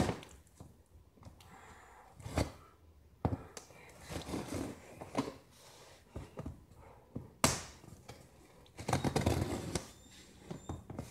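Cardboard packaging being handled and pulled open: scattered knocks and scrapes with short bursts of rustling, the longest burst about nine seconds in.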